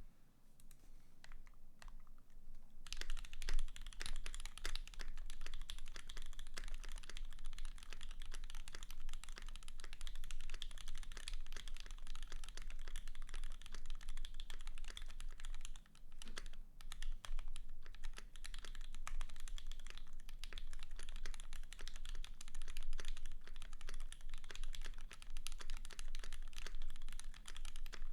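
Fast typing on a Keycult No.1/60 custom mechanical keyboard with an aluminum case and plate, lubed Aqua Tealios linear switches and GMK keycaps. A few scattered keystrokes come first, then steady rapid typing from about three seconds in, with a short pause a little past halfway.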